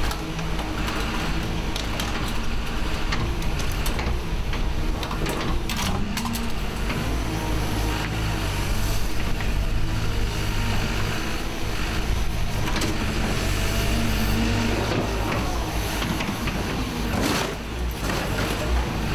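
Hyundai HX180 excavator's diesel engine and hydraulics running steadily, rising in pitch as the grab and arm work under load. Scattered metal clanks and knocks come from car scrap being gripped and moved.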